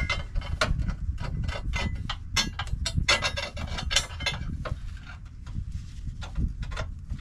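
Irregular metal clicks, clinks and scrapes as a spacer and bolt are worked by hand into a Jeep JL Wrangler's factory upper control arm mount, knocking against the steel drop bracket.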